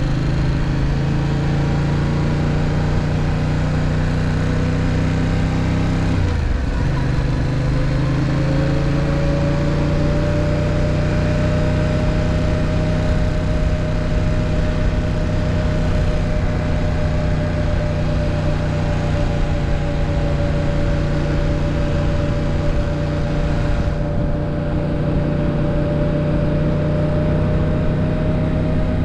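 Yamaha MT-07's parallel-twin engine running under way at steady revs, dipping sharply about six seconds in and climbing straight back, then holding steady with a constant whine for the rest of the stretch.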